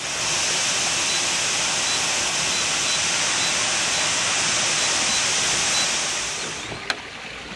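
A loud, steady hiss that starts suddenly and fades out near the end, with faint, evenly spaced short high beeps under it and a single sharp click toward the end.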